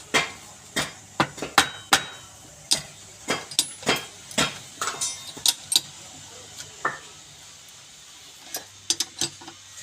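Irregular sharp knocks and clinks of hard objects being struck or set down, several a second for the first six seconds, then only a few scattered ones near the end.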